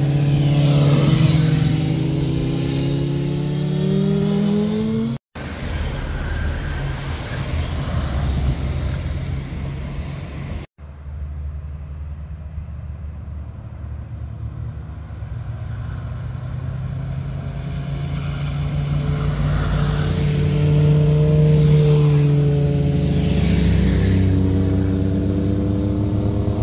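Motorcycle engines accelerating through a hairpin bend, in short cut-together clips. First one bike's engine rises in pitch as it pulls out of the corner. After a cut, engine rumble builds as a group of bikes comes up the bend, loudest near the end.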